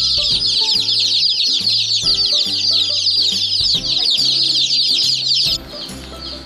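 Dozens of baby chicks peeping loudly at once, a dense chorus of overlapping short chirps. It cuts off abruptly about five and a half seconds in, leaving only faint peeping.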